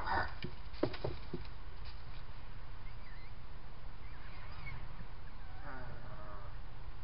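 Grey fox kits calling: a short cry at the start and a whining call with several pitches about six seconds in. A few sharp clicks come about a second in, and a steady low hiss runs underneath.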